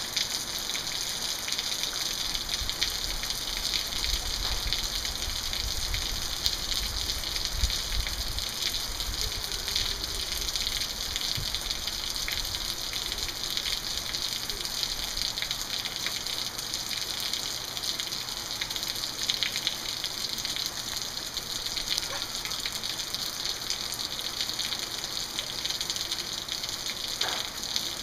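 Steady rain falling, an even dense hiss, with a low rumble underneath through about the first half.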